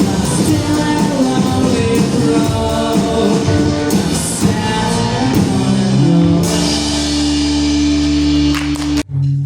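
Rock music with singing, drums and guitar. About six seconds in it settles on a held chord, which cuts off suddenly about nine seconds in.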